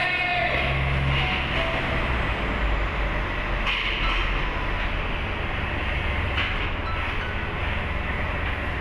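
Steady low mechanical rumble of a heavy engine running, with a constant noise haze over it.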